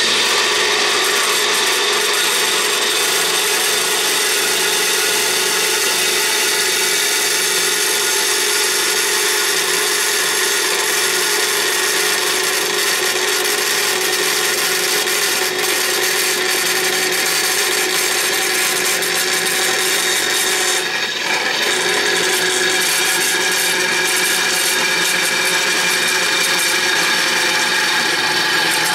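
Bandsaw converted from a wood saw, running at its slowest speed with a quarter-inch metal-cutting blade, sawing steadily through 1/8-inch steel plate. A continuous cutting noise carries several steady high tones, with one brief dip about two-thirds of the way through.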